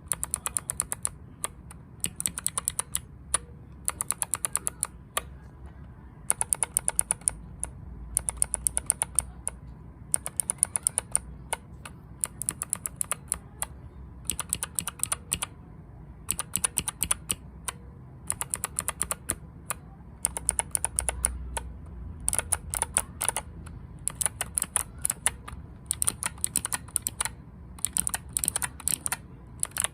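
Mechanical keyboard keys typed in rapid bursts of sharp clacks, each run lasting about a second with brief pauses between, as keycaps are tried out for their typing sound.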